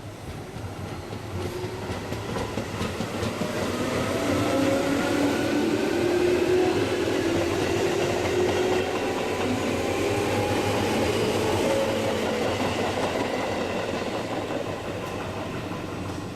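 Tobu Railway electric train going by close to the platform, its wheels clattering over the rail joints while a motor whine rises in pitch. The sound builds up, peaks through the middle and then fades.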